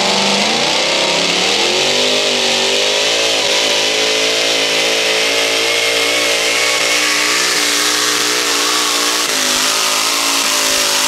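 Supercharged engine of a modified pulling tractor at full throttle under load while pulling. Its pitch climbs over the first two seconds, then holds high with a slight wavering.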